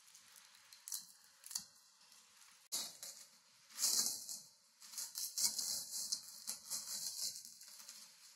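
Clear plastic packaging wrap crinkling and tearing as it is pulled off a new bicycle's handlebar and brake levers, a couple of short rustles and then dense crackling from about three seconds in.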